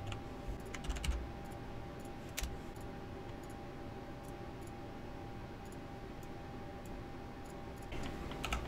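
Keys on a computer keyboard tapped now and then, a few scattered taps with a quicker run of them near the end, over a faint steady hum.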